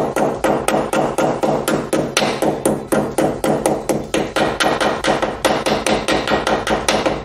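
Steel hammer tapping quickly and steadily, about five or six blows a second, on a steel steering-head bearing race (cup) to start it square into the motorcycle frame's head tube until it sits flush.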